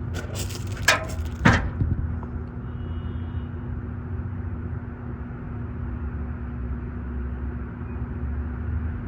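Three sharp clicks of a bolt and tool being handled in the first two seconds, over a steady low rumble with a constant hum.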